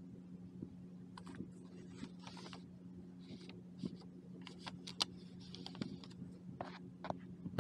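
Paper and card pages of a handmade journal being handled: scattered light clicks, taps and short rustles, over a steady low hum.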